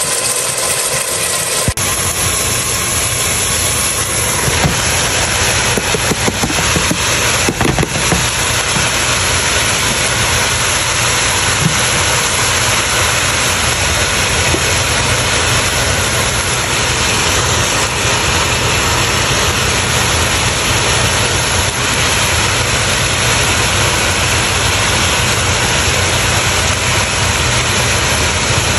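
A loud, steady hum with a hiss over it. It cuts in abruptly about two seconds in and then runs evenly without change.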